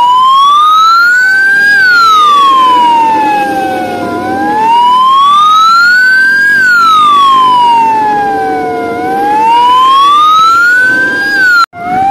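Fire engine siren on wail, its pitch sliding slowly up and down, each rise and fall taking about five seconds. It cuts out for a moment near the end.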